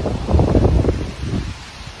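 Gusty wind buffeting the phone's microphone, a low uneven rumble that eases off about halfway through.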